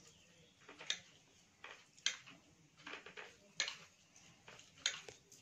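Eating rice by hand from a plate: a string of sharp, light clicks, about one a second, from fingers working the rice against the plate and from the mouth while chewing.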